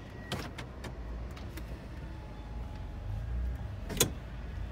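Car interior: a steady low engine and road rumble that grows a little louder near the end as the car pulls forward. A few light clicks come in the first second or so, then one sharp click about four seconds in.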